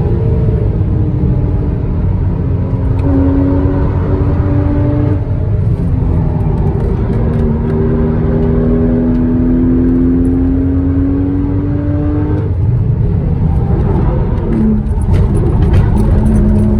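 Porsche Cayman S (981) 3.4-litre flat-six under load, its note climbing slowly through the revs in a high gear, over heavy road and wind rumble. The note breaks and drops about five seconds in and again about twelve seconds in, as with gear changes or lifting off.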